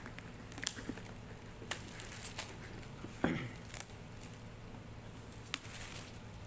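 A shrink-wrapped cardboard headphone box being opened and handled: scattered crinkles, scrapes and sharp taps of cardboard and plastic film, with one short sliding scrape a little past the middle. A steady low hum runs underneath.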